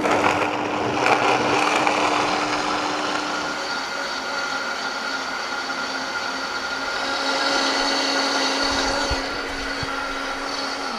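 Vitamix high-power blender motor running at full speed on its soup program, liquefying vegetables and water into soup, which the long blend warms by blade friction. A steady rushing sound with a hum and a high whine held throughout.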